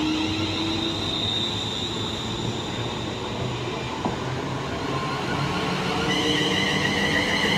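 ScotRail Class 380 electric multiple unit pulling out of the station, its running noise a steady rumble with high whining tones. New, higher whine tones grow louder about six seconds in.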